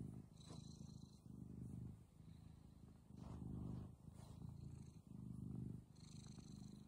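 Calico cat purring while being petted: a faint, low purr that comes in phases about a second long, with short breaks between them as she breathes in and out.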